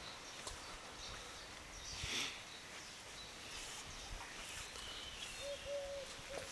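Quiet garden ambience with small birds chirping faintly; near the end a dove begins cooing in low, short repeated notes.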